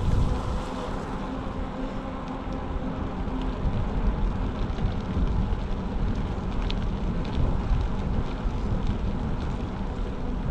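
Wind rushing over the microphone of a moving bicycle, with the bike's tyres rolling on the asphalt and a few faint ticks.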